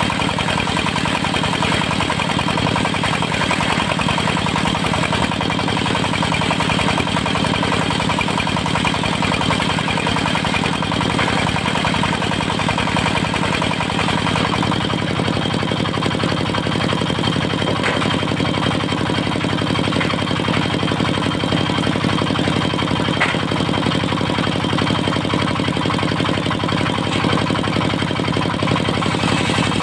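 Diesel engine of a mobile circular sawmill running steadily at an even speed.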